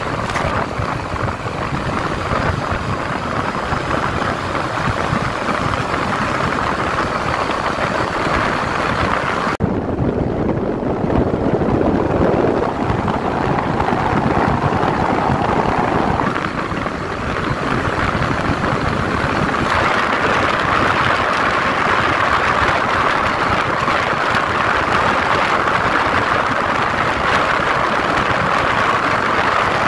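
A 150 cc single-cylinder motorcycle engine runs steadily at highway cruising revs, around 6,000 rpm, mixed with the rush of wind noise. About ten seconds in the sound changes abruptly and the hiss drops away for a few seconds before coming back.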